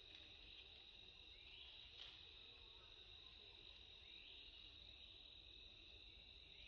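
Faint insect chorus: a steady high-pitched drone with a rising sweep about every three seconds, and a single faint click about two seconds in.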